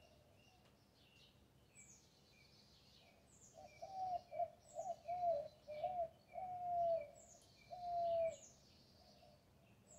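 Birds calling in a garden: one bird repeats a high note that falls quickly, about once a second, while a louder, lower bird call of several short arched notes and then two longer held notes comes in a few seconds in and stops near the end.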